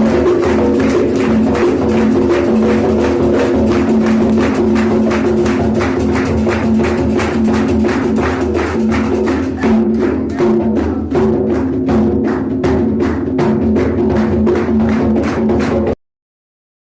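Music with a fast, steady percussion beat, about four strokes a second, over held low tones. It stops abruptly about a second before the end.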